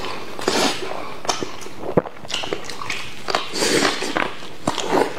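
Close-miked wet chewing, lip smacking and slurping as a man bites and eats sauce-covered braised meat, with irregular sharp clicks and smacks, one of them sharper about two seconds in.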